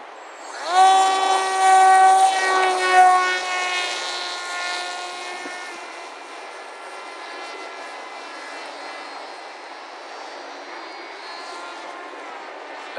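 Electric motor and propeller of a small foam RC combat wing going to full throttle about half a second in: a whine that swoops up in pitch and holds steady, then fades away after a few seconds as the hand-launched plane flies off.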